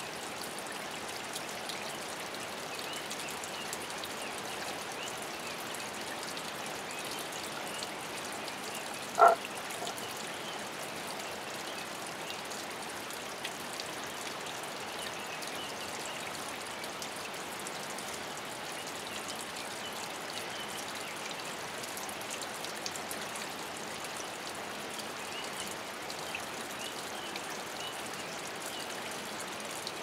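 Water trickling and dripping steadily in a small rock hollow, with one short croak from a toad hidden inside about nine seconds in.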